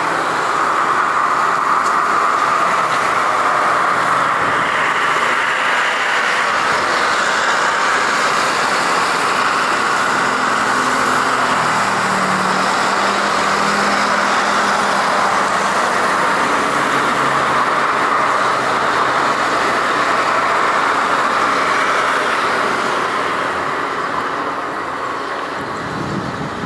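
Boeing 747-200's four jet engines during the landing roll: a loud, steady rush of engine noise that fades over the last few seconds.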